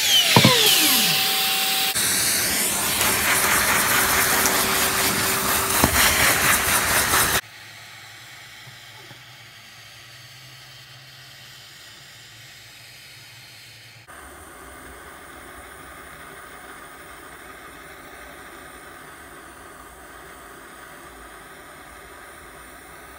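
A wood router's motor whining down in pitch after it is switched off, followed by a loud steady rushing noise that cuts off suddenly about seven seconds in. Then a small handheld gas torch hisses quietly and steadily as its flame scorches the edges of the routed wood.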